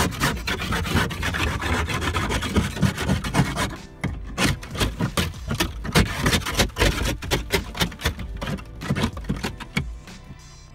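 Ice scraper scraping and chipping a thick sheet of ice off a car windshield, heard from inside the car through the glass. Quick, dense scraping strokes for the first few seconds, then separate harder strokes as slabs of ice crack away, quieter near the end.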